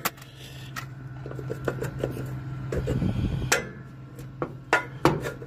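Steel pry bar clanking and scraping against a battery and its steel battery box as an old 6-volt battery is levered out, in irregular sharp knocks with the loudest about three and a half seconds in. A steady low hum runs underneath.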